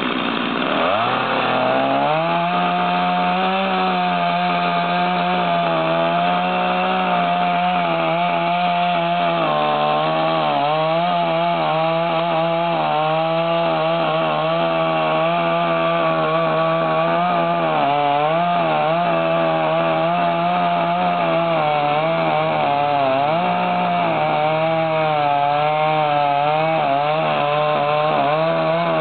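Chainsaw revving up about a second in, then running at high speed as it cuts through the trunk of a storm-felled tree, its pitch sagging and recovering as the chain bites into the wood.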